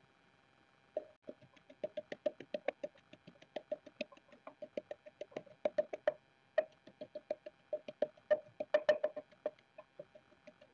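Wooden pestle pounding mint leaves and a green chilli into a paste in a painted wooden mortar: a quick, uneven run of dull knocks, several a second, starting about a second in.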